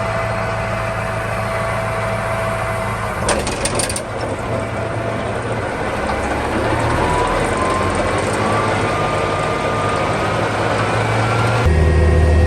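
Farm tractor engine running steadily, with a brief clatter about three seconds in and a whine that slowly rises in pitch through the middle. Near the end the sound changes abruptly to a louder, deeper engine hum.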